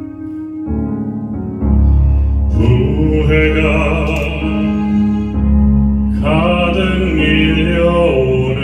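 A male singer sings a slow Korean ballad live into a handheld microphone over instrumental accompaniment. The accompaniment plays alone at first, a deep bass comes in after about a second and a half, and the voice enters about two and a half seconds in, pausing briefly midway.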